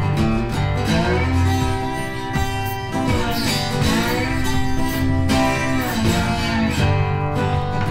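Background music: acoustic guitar, with what may be a singing voice over it.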